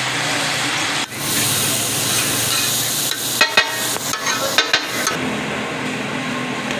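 Taka tak meat frying on a hot flat iron griddle (tawa): a loud sizzling hiss starts about a second in, with metal spatulas clacking against the griddle in two quick pairs. The hiss stops about five seconds in.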